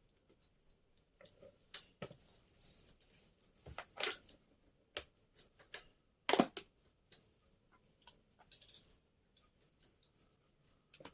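Small hard parts being handled and set down: irregular clicks and clatters with quiet gaps, the loudest about four seconds in and just after six seconds.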